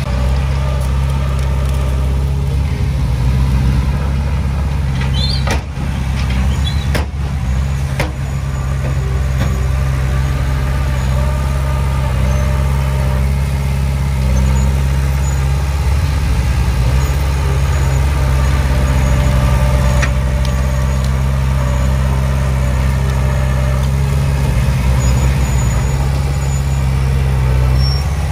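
Diesel engine of a Komatsu D20P small crawler dozer running steadily as it pushes soil and brush, with a few sharp clicks about six to eight seconds in.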